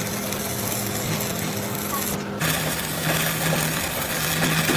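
A machine running with a steady hum under a loud hiss; the hiss cuts out for a moment about two seconds in, then starts again.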